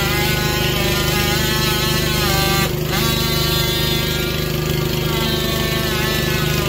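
Boom lift's engine running steadily, with a whine above it that slides up and down in pitch and breaks off briefly about three seconds in.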